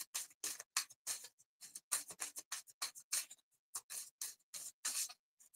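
Deck of tarot cards being shuffled by hand: a quick, uneven run of short swishes as cards slide over one another, about three or four a second.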